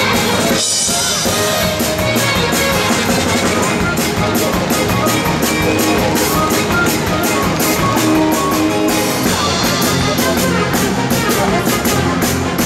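Loud upbeat music with a steady drum beat.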